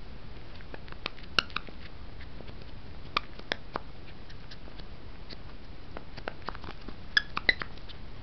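A puppy chewing and mouthing a toy: scattered soft clicks and taps. Short high squeaks from the toy come about a second in, around three seconds in, and twice near the end.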